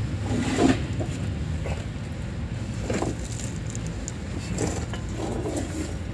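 A steady low machine rumble, with a sharp knock about half a second in and another about three seconds in, as a mud-caked suspension part is worked by hand under the vehicle.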